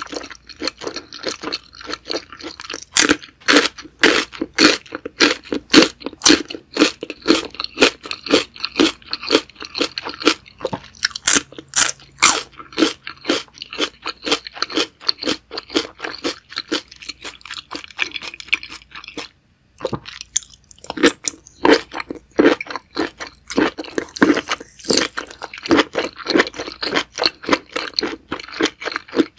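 Close-miked chewing of saucy seafood such as octopus and squid: a steady run of wet crunching and smacking bites, about two to three a second, with a short pause about two-thirds of the way through.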